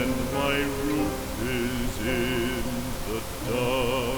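Background music: a slow song with a singing voice, its held notes wavering.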